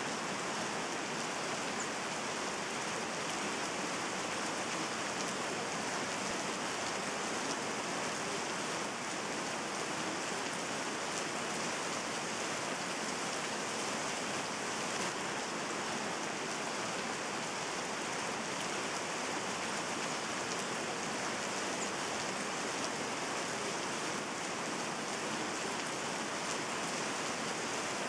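Steady rain: an even, unbroken hiss of falling rain with a few faint drop ticks.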